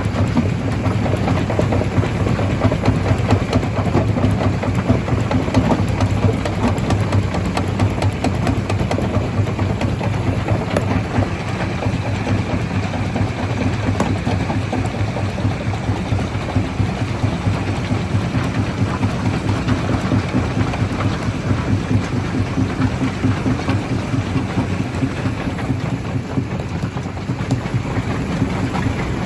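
Stone crusher running, with a dense, steady crackle of rock being broken over a low machine hum.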